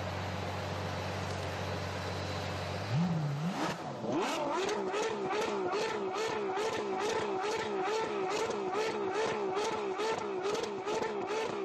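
Supercar engine idling steadily, blipped once about three seconds in, then held at high revs with a wavering pitch and a regular pulsing about three times a second.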